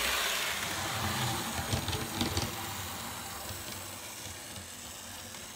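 N scale Atlas EMD E7 model diesel locomotive running on its track: the small electric motor and gears whir over a steady hiss of wheel noise, with a few clicks about two seconds in. The sound fades steadily as the locomotive slows.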